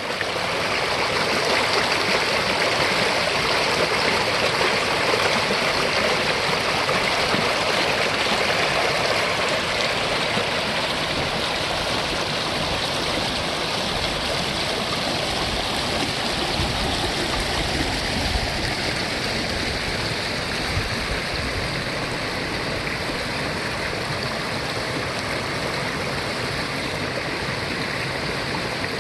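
Mountain valley stream rushing steadily, a little louder in the first ten seconds and easing slightly after.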